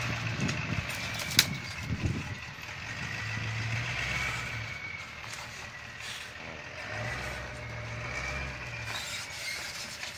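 Ford pickup's engine running at low speed while pulling a fifth-wheel travel trailer over a rocky trail, the engine note swelling in repeated throttle surges. A sharp knock sounds about a second and a half in.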